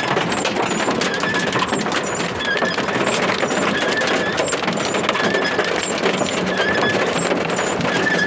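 Steady road and rain noise inside a moving vehicle, with a short high squeak repeating about once a second.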